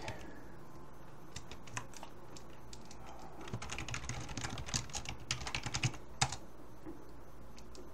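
Typing on a computer keyboard: a few scattered keystrokes, then a quick run of keystrokes, ending with one louder keystroke about six seconds in.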